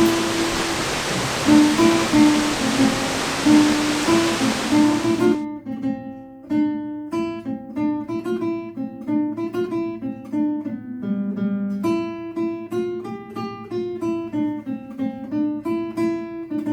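Steady waterfall noise under gentle plucked-string instrumental music; the water cuts off suddenly about five seconds in, leaving the music alone as picked notes.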